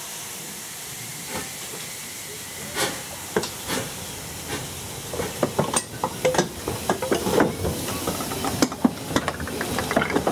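Robert Stephenson and Hawthorns 0-6-0 tank engine no.7151 standing in steam, a faint hiss of steam under the rest. A few sharp knocks come in the first half. From about halfway on there is a busy run of irregular knocks and clatter.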